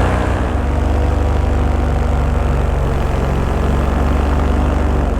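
Paramotor engine and propeller running steadily in flight, a low engine note holding a constant pitch.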